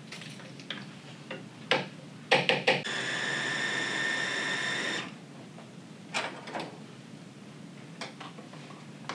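Small blender motor running for about two seconds with a steady whine, blending a thick banana, mango and Greek yogurt mix into a puree. Sharp knocks and clatters of the jar and utensils being handled come just before it and a few more after it, the loudest just before the motor starts.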